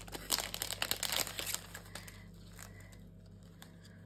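Clear plastic packet crinkling in the hands as paper die cuts are pulled out of it. The crinkling is busy for the first second and a half, then dies down to a few light rustles.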